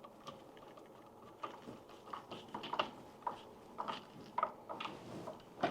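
Small irregular clicks and taps of hand work on an electrical receptacle as the hot wire is connected to it, starting about a second and a half in and coming quicker toward the end.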